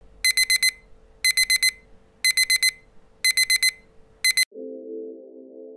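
Digital alarm beeping in quick groups of four, about one group a second, cut off suddenly partway through the fifth group. Soft ambient music starts right after.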